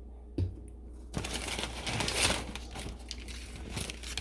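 A single knock, then packaging crinkling and rustling for about three seconds as it is handled, loudest about two seconds in.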